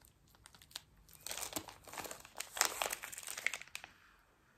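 Clear plastic bag of wax melts crinkling and crackling as it is handled, from about a second in until near the end.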